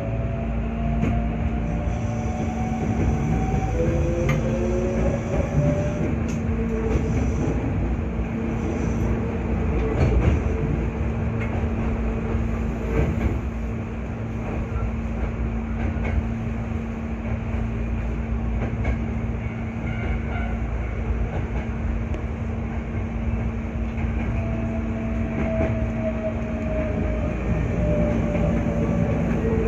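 Hankyu 8300 series electric train running on the Senri Line, heard from inside the car: a steady rumble of wheels on rail under a constant electrical hum. Motor whine rises in pitch in the first few seconds as the train picks up speed after a station stop, and a falling whine comes near the end.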